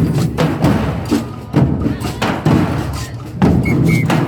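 Drums beaten in a loose, uneven rhythm, about three strikes a second.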